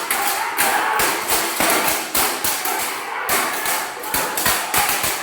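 Weapons striking together in a Kalaripayattu fight demonstration: sharp, irregular knocks and clashes, about two to three a second.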